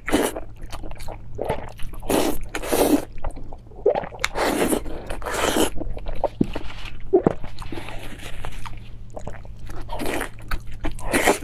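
Close-miked wet chewing and biting of soft, sticky braised pork, with squishing mouth sounds in irregular bursts.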